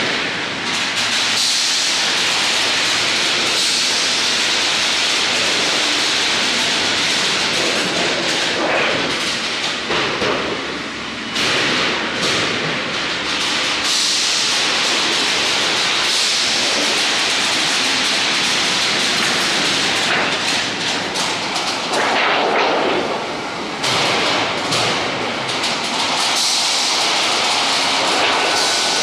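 Roofing-sheet roll-forming machine running, drawing a steel strip off its coil: steady, loud machine noise, mostly an even hiss, dipping briefly twice.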